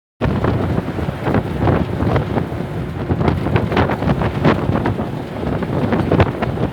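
Tamil Nadu government bus on the move, heard from inside: engine and road noise with wind buffeting the microphone, and frequent short rattles and knocks. The sound cuts out for a moment right at the start.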